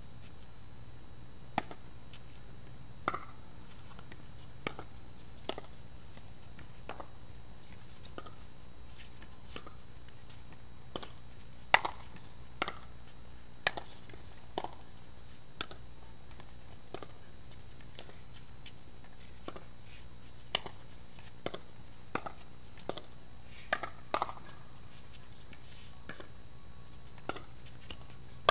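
Pickleball play: sharp pops of paddles striking the hollow plastic ball, coming in rallies at irregular spacings of about a second, the loudest about twelve seconds in.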